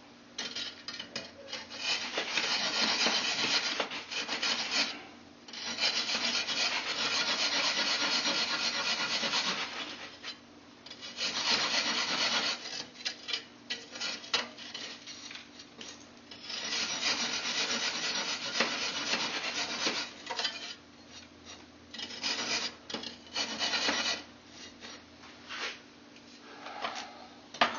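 A hacksaw cuts a groove into a soft firebrick, a dry rasping of back-and-forth strokes. It comes in stretches of several seconds with short pauses between them, and the strokes are choppier in the second half.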